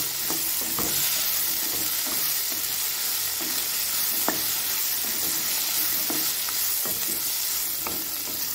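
Spatula stirring and scraping shallots, dried red chillies and spices frying in oil in a kadai: a steady sizzle with irregular scrapes and clicks of the spatula against the pan.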